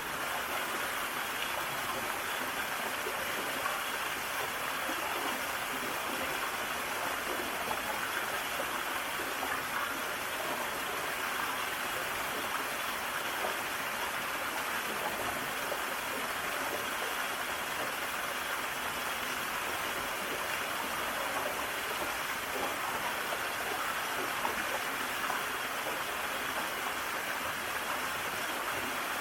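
Mountain stream rushing over rocks in a small valley: steady, even water noise with no other sounds.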